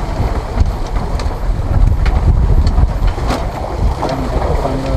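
Wind buffeting the microphone as a low, fluctuating rumble over choppy sea water, with a few light ticks.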